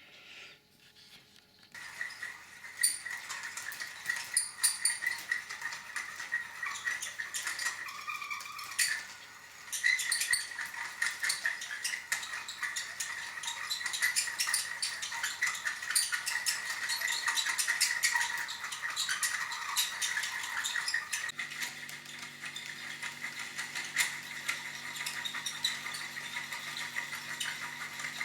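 A fishing reel being cranked steadily to wind new line onto its spool, its gears whirring with a fast continuous clicking. The winding pauses briefly about a third of the way in, then carries on.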